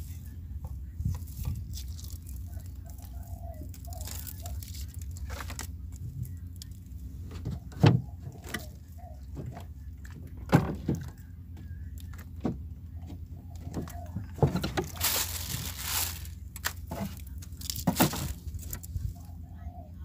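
Wire-mesh crab trap rattling and clattering against a wooden boat as it is baited with fish and thrown overboard, with several sharp knocks and a brief rush of noise about fifteen seconds in. A steady low rumble of wind runs underneath.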